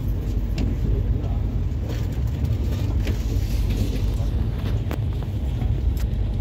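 Jan Shatabdi Express passenger train running: a steady low rumble of the coaches on the track, with faint scattered clicks.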